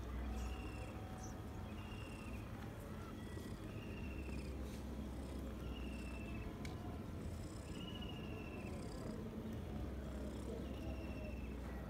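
Domestic cat purring as a low steady rumble, with a short high falling chirp repeating about every second and a half in the background.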